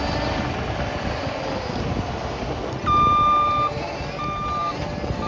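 CAT 299D2 XHP compact track loader's diesel engine running steadily. About three seconds in, its backup alarm starts beeping: a longer first beep, then shorter beeps about once a second.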